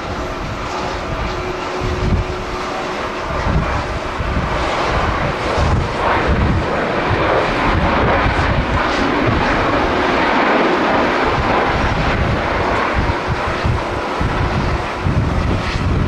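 Boeing 737-800's CFM56 jet engines in reverse thrust during the landing rollout, the engine noise swelling about four seconds in and easing off near the end. Gusty wind buffets the microphone throughout.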